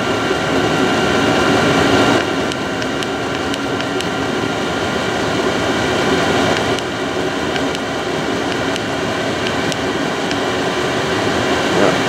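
Vevor 8 kW diesel air heater running, its blower fan and burner making a steady rushing noise with several steady whining tones, as its fuel pump setting is turned up to high.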